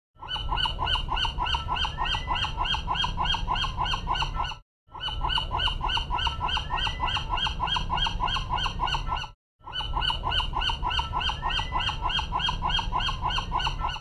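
Gulls calling in a fast, even series of about five calls a second over a steady low rumble, with one rising call standing out. The same stretch of about four and a half seconds plays three times, with short breaks between.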